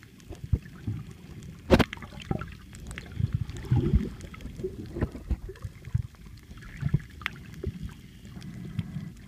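Muffled underwater sound picked up by a camera held below the surface: low sloshing and gurgling of moving water, with scattered clicks and knocks, the sharpest a bit under two seconds in.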